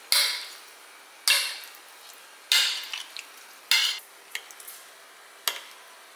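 Metal serving spoon and fork tossing oily carrot slices on a ceramic plate: four scraping clinks of metal against the plate, about one a second, then a few light ticks and a single sharp fork tap near the end.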